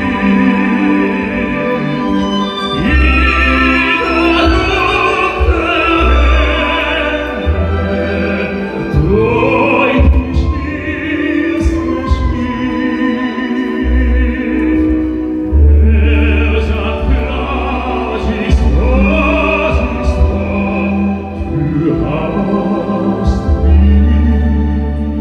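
Tenor singing an operatic line into a handheld microphone over orchestral accompaniment, amplified through a PA.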